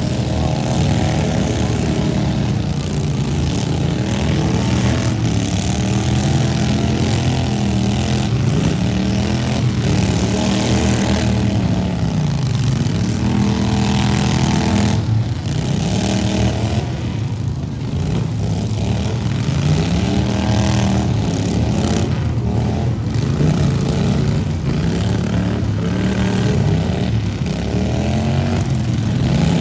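Several lawn mower engines in a demolition derby, revving up and down over and over as the mowers drive and ram, their pitches overlapping and swinging every second or two.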